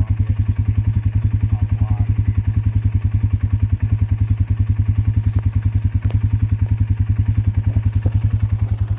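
Four-wheeler (ATV) engine idling steadily, a low, even putter of about nine pulses a second, with a few faint clicks about five to six seconds in.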